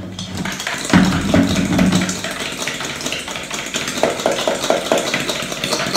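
Wire whisk beating a liquid mix of buttermilk, eggs and sugar in a bowl: a fast, steady run of small clicks and scrapes against the bowl, picking up strongly about a second in.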